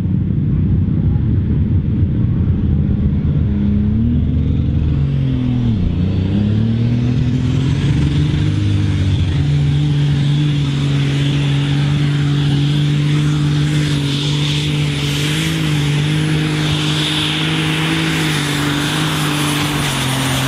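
Case IH super stock pulling tractor's turbocharged diesel engine under full load, dragging the weight sled. It rumbles low, revs up about four seconds in and dips sharply. From about seven seconds it holds a steady high-revving note with a high turbo whistle rising in over it.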